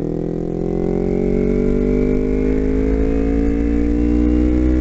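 Kawasaki Ninja 250's parallel-twin engine accelerating hard in third gear, its pitch climbing steadily and unbroken as it revs up toward its 13,000 rpm redline.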